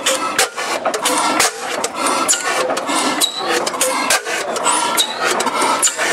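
Fetu-Defize slide-valve stationary gas engine (Deutz patent) running, its valve gear and linkage clicking and clattering in a steady rhythm of about two knocks a second, with short high chirps recurring between them.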